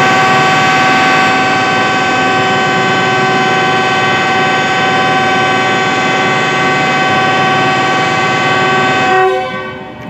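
Diesel-electric locomotive's air horn sounding one long, very intense blast of several notes at once. It holds steady for about nine seconds, then dies away.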